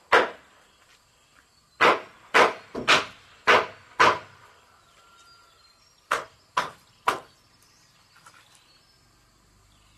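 A machete chopping at wood, about ten sharp strikes: a run of six a couple of seconds in, a pause, then three more.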